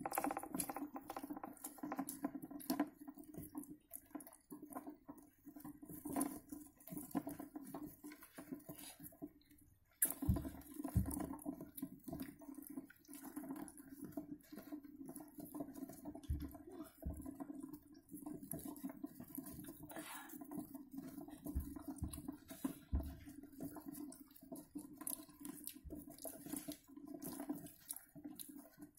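Djungarian hamsters gnawing and scrabbling at a nut on a plastic cage floor: faint, irregular small clicks and scratches, with a few soft low thumps and a steady low hum underneath.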